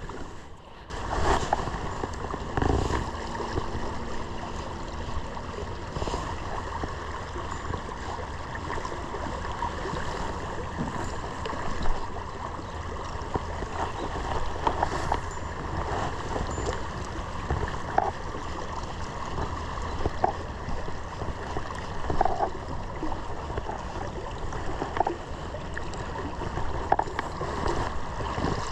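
Shallow stream water rushing and gurgling steadily, with a few faint clicks and knocks.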